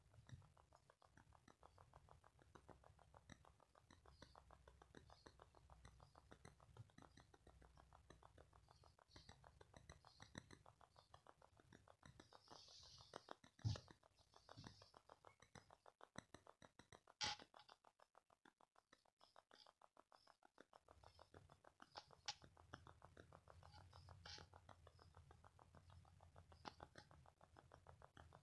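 Near silence: faint scratching and rustling of yarn drawn through stitches on a crochet hook, with two soft knocks around the middle.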